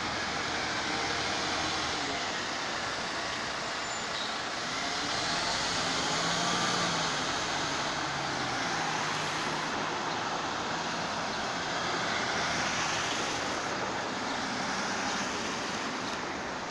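Street traffic: an articulated city bus driving off and cars passing close by. It is a steady wash of engine and tyre noise that swells a couple of times as vehicles go past.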